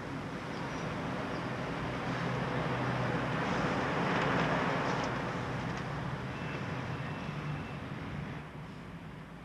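City street traffic: a steady hum of engines with a passing vehicle that swells to its loudest about halfway through, then fades away.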